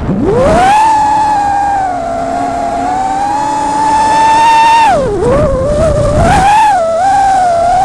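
FPV quadcopter's electric motors whining at a high pitch with throttle changes: the whine sweeps up quickly just after the start and holds steady, drops sharply about five seconds in, then wavers up and down before settling again.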